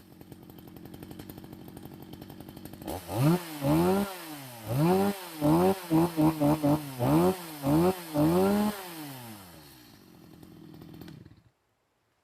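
Stihl MS 250 two-stroke chainsaw idling steadily, then revved in a dozen or so quick throttle blips, each pitch rising and falling. It settles back to idle and is switched off near the end.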